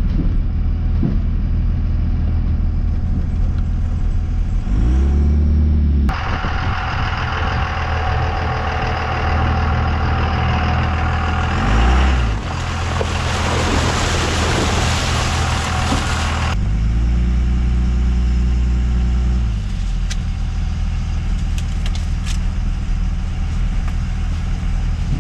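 An old truck driving slowly up a rough mountain road: the engine runs steadily and revs up a few times. A loud rush of tyre and road noise lasts about ten seconds in the middle, and a few sharp knocks come near the end.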